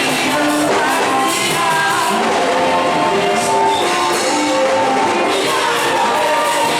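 Music with singing: a worship song performed with voices and instruments in a large hall.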